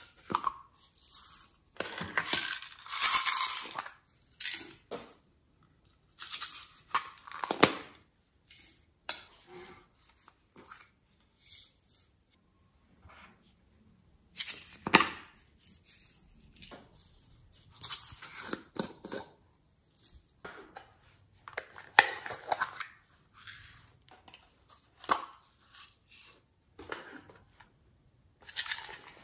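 Small plastic storage containers being opened, with lids and latches clicking, and sequins, glitter and clay bits shaken out and rattling onto slime in a glass dish. The clicks and rattles come in irregular short bursts with brief pauses between them.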